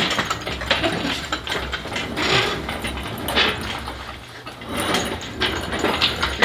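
Irregular metallic clanks, knocks and scraping as the 4G63T engine is worked free of the engine bay, with a low rumble underneath through the first few seconds.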